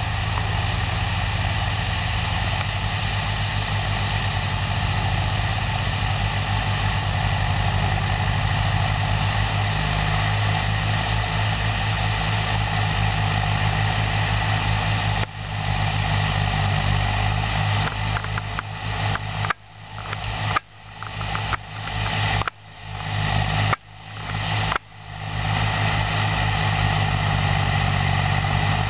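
Diesel engines of two Hattat farm tractors running steadily as they work across a field. The sound cuts out abruptly five or six times, each briefly, about two-thirds of the way through.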